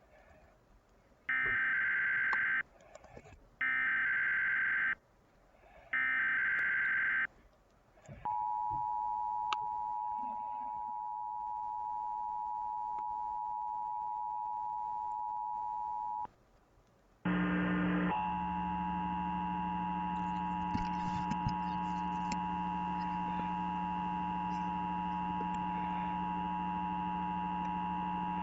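Emergency Alert System test signal: three short bursts of the SAME digital header's screeching data tones, then the steady two-tone attention signal held for about eight seconds. After a brief gap the two-tone attention signal starts again, this time over a low hum, and runs on.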